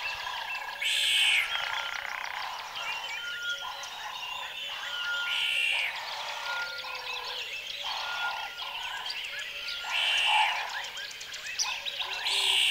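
A chorus of frogs croaking with birds chirping, many overlapping calls and a louder call every four to five seconds.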